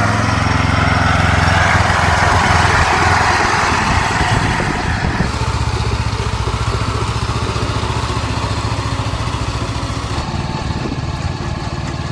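Engine of an 18 HP four-wheel-drive power weeder running, its note shifting about five seconds in and again near ten seconds.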